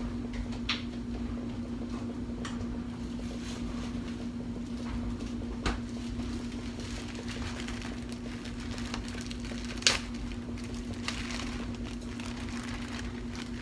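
Kitchen handling sounds: scattered light knocks and clicks and some brief rustling as things are picked up and set down. The loudest is a single sharp knock about ten seconds in. A steady low hum runs underneath throughout.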